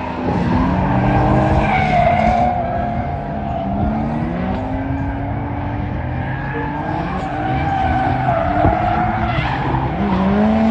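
Drift cars sliding through the corners: engines revving up and down under a steady, wavering tyre squeal.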